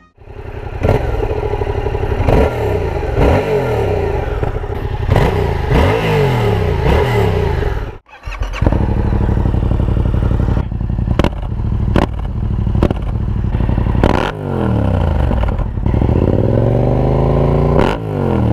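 Yamaha MT-07's parallel-twin engine pulling through the gears, its pitch climbing and dropping again and again with each shift; about eight seconds in the sound cuts to the same bike through an Akrapovic 2-in-1 carbon exhaust with the baffle in, accelerating the same way, with a few sharp clicks and one long rev rising and falling near the end. The first part is the stock exhaust.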